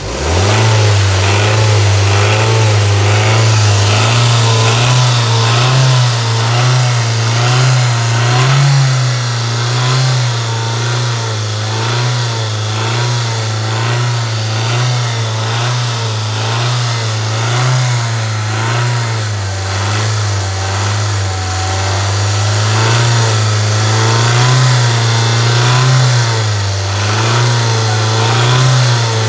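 Hyundai Elantra's 1.6 G4FC four-cylinder petrol engine brought up from idle to higher revs and held there, the pitch stepping slightly up and down. The engine is being run up to check an unexplained knock around 2–3 thousand rpm, which the owner thinks has become a little quieter on fresh 5W-30 oil.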